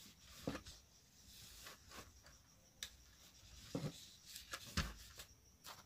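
Small clothes iron sliding and pressing over folded cotton fabric on a cloth-covered surface, faint rubbing with scattered light knocks, the loudest about five seconds in.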